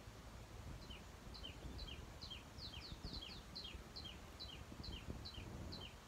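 A small bird singing a quick run of short falling chirps that alternate between a higher and a lower note, starting about a second in and stopping near the end.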